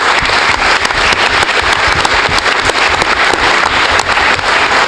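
Audience applauding: many hands clapping in a dense, steady clatter.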